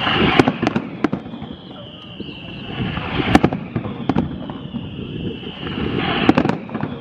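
Aerial fireworks shells bursting with sharp bangs in three clusters, about three seconds apart. Between the bursts comes a high whistling tone that slides slowly down in pitch.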